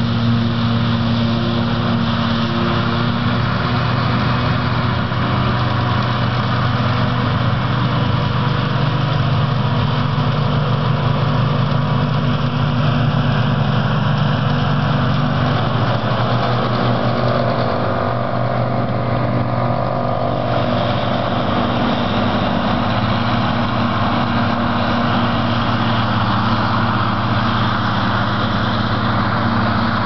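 Heavy farm diesel engines of silage machinery, a forage harvester and tractors, running steadily. A continuous low engine drone whose pitch shifts slightly around the middle.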